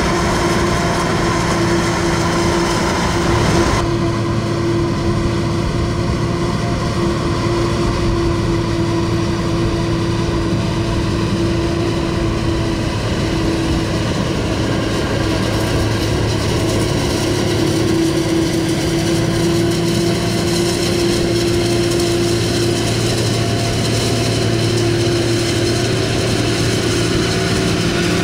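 Heavy farm machinery running steadily during maize chopping, with a steady hum and a held whine. The sound changes abruptly about four seconds in.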